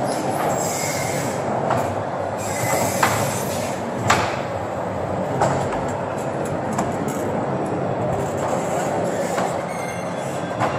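Coin-operated kiddy train ride running around its small track: a steady rumbling clatter with a few sharp clicks in the first half.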